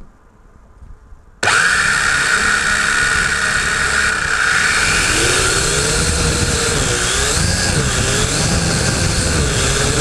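Syma X8HW quadcopter's brushed motors and propellers spin up suddenly about a second and a half in and run at a loud, steady whine as it lifts off, heard close-up from the GoPro it carries. From about halfway through the pitch wavers up and down as the motors work against the wind under the camera's weight.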